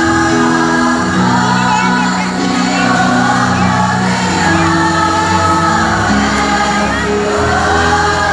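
Mixed choir of women and men singing together in parts, holding notes that change chord every second or so.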